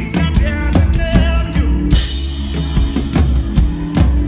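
Live worship band music led by a DW drum kit played busily: rapid drum hits over a steady bass, with a cymbal crash about two seconds in.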